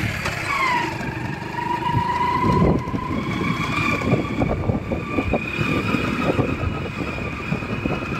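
A vehicle's engine running while on the move, with a whine that drops in pitch in the first second and then holds steady. Wind buffets the microphone from about two and a half seconds in.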